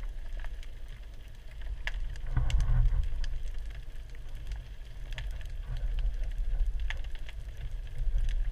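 Underwater sound picked up by a GoPro in its waterproof housing: a low rumble of moving water with scattered sharp clicks and crackles, swelling louder about two and a half seconds in.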